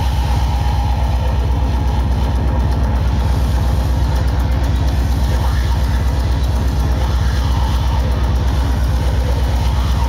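Hardcore electronic music at club volume: a fast, distorted kick drum pounding in a rapid, even rhythm, with a dense layer of noisy, distorted sound above it.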